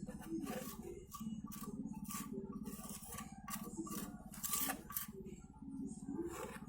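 Repeated short scraping strokes, roughly two a second and uneven, over a steady low hum.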